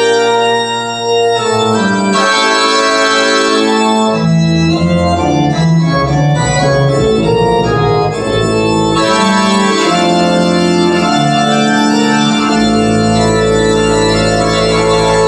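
Organ music with long held chords, played back through Technics SB-6000A loudspeakers. A deep, sustained bass comes in about twelve seconds in.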